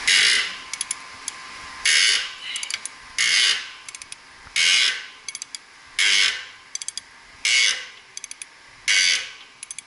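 Heavy 3/4-inch-drive ratchet wrench being worked back and forth on a pump flange bolt, about seven strokes roughly one every second and a half. Each stroke gives a loud burst of ratcheting followed by a few lighter clicks, as a loosened nut is backed off.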